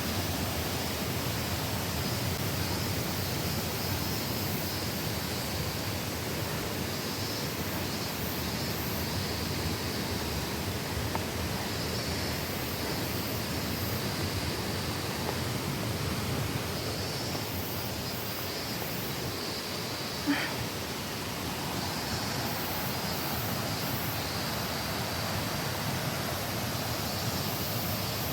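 Waterfall's steady rushing roar of falling water, with a single short click about twenty seconds in.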